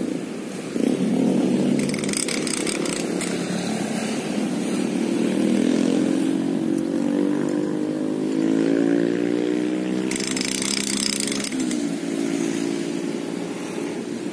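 Small engine of a passing road vehicle running, its pitch climbing slowly over several seconds and then dropping off near the end.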